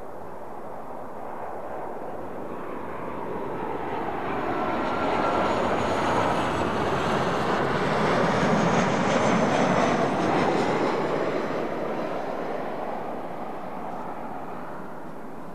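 Airbus A350's Rolls-Royce Trent XWB jet engines passing by, swelling to a peak about nine seconds in and then fading away.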